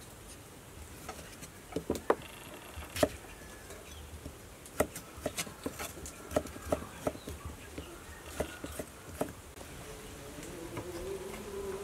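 Kitchen knife cutting boiled bamboo shoot down onto a thick wooden chopping block: about a dozen irregular knocks of the blade on the wood. Faint insect buzzing runs underneath, becoming a wavering buzz near the end.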